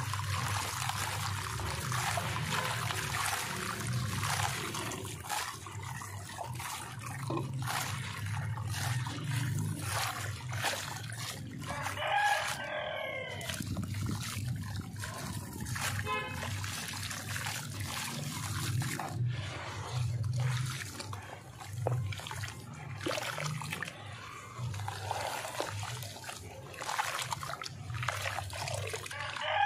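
Dry sand-and-cement chunks crumbling in the hand, the grit pouring and pattering down into a tub of water, with hands squishing through the wet, gritty paste near the end. A rooster crows in the background about twelve seconds in and again at the very end.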